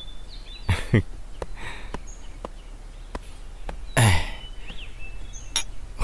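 A person's short breathy vocal sounds, dropping in pitch, once about a second in and more strongly about four seconds in. Faint bird chirps can be heard behind them.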